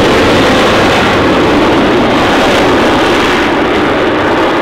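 Jet noise of a Eurofighter Typhoon's twin turbofan engines as the fighter flies past low on landing approach, loud and slowly fading as it moves away, its high hiss dying out near the end.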